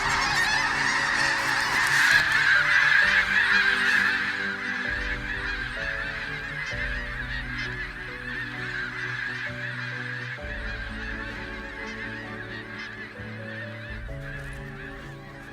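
A large flock of snow geese calling together, a dense, continuous din of overlapping honks. It is loudest in the first few seconds, then gradually fades.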